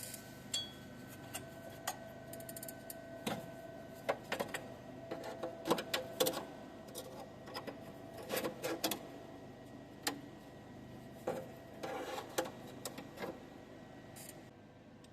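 Scattered light clicks and taps of tools and metal parts being handled, irregular and short, over a faint steady hum.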